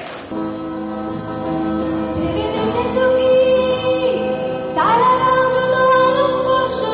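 A woman singing to her own acoustic guitar accompaniment: held guitar chords first, with her voice coming in about two seconds in and singing louder, with sliding notes, near the end.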